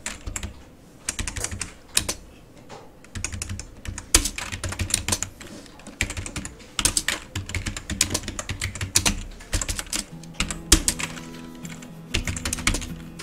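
Computer keyboard being typed on in quick bursts of key clicks with short pauses between. Low background music comes in near the end.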